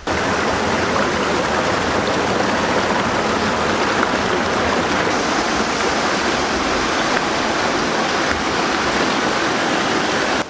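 Water rushing steadily down a small waterfall, an even, unbroken roar of falling and splashing water.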